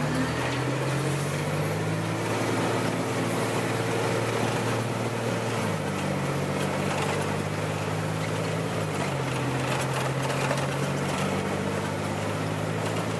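Vehicle engine running while driving, heard from inside the cab over steady road noise; the engine note drops in steps about six seconds in and again about three seconds later.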